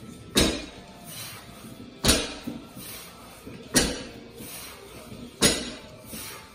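A 315 lb barbell loaded with bumper plates touching down on the rubber mats of a lifting platform between deadlift reps: four thuds about 1.7 seconds apart.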